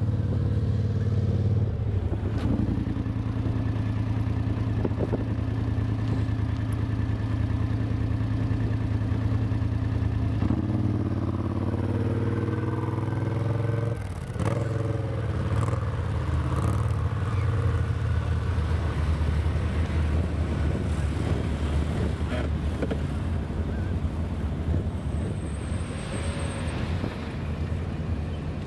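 Engines of off-road 4x4 vehicles and an ATV running steadily as they climb; the engine note shifts about halfway through as the quad passes close by.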